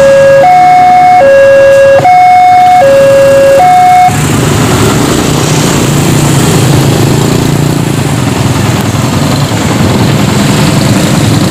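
Railway level-crossing warning alarm sounding two alternating electronic tones, high then low, each held a little under a second. It stops about four seconds in as the crossing clears, and then a crowd of motorbike engines run and pull away across the tracks.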